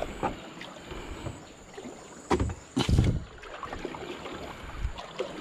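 Water being splashed onto muddy stone steps to wash them, in a few irregular heavy splashes, the loudest two close together about halfway through.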